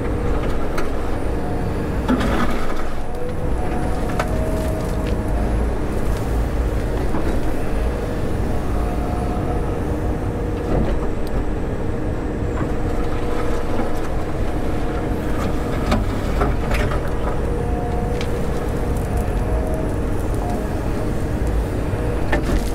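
John Deere 345 excavator's diesel engine running steadily under hydraulic load, heard from inside the cab as the boom and bucket work, with a few short knocks along the way.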